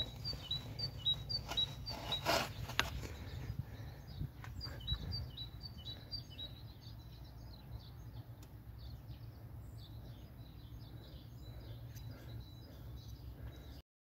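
A small bird chirping quickly and repeatedly over a low steady background rumble, with a few knocks in the first three seconds. Everything cuts off suddenly near the end.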